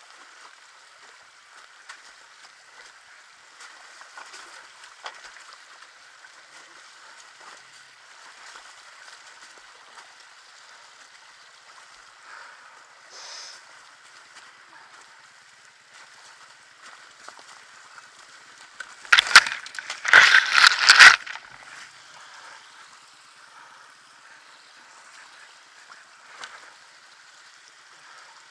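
Dirt bike riding up a rocky track through running water, heard as a steady, thin hiss of water and engine through a helmet camera, with a loud burst of noise lasting about two seconds about two-thirds of the way through.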